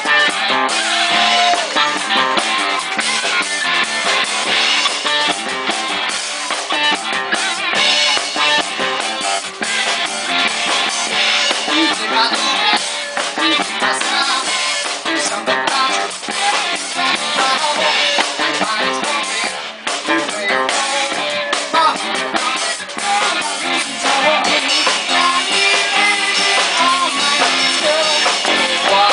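Live rock band playing with drum kit and guitar, a funk-rock jam groove; the recording is thin in the low end.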